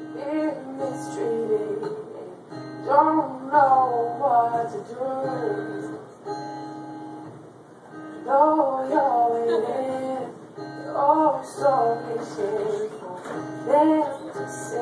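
A woman singing while strumming an acoustic guitar, her phrases separated by short pauses as the guitar carries on.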